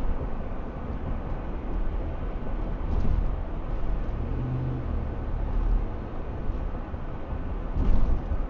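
Steady road and engine rumble of a 2008 Ford F-150 pickup cruising at about 40 mph, heard from inside the cab through a windshield dash cam. A couple of brief thumps come about three seconds in and near the end.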